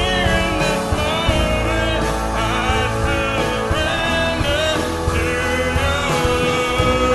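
Worship music: a band playing a song with a singing voice over a steady bass.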